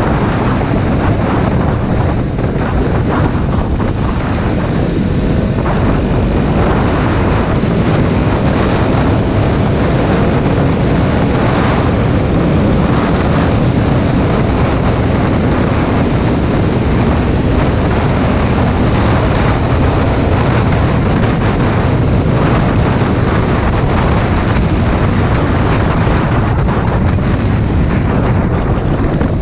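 Motorcycle engine running at a steady cruise on a dirt trail, with heavy wind noise buffeting the helmet-camera microphone.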